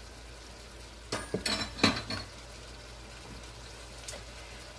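A quick run of clatters and ringing clinks, a metal kitchen utensil knocking against a pan, about a second in, over the low steady hiss of potatoes frying in oil.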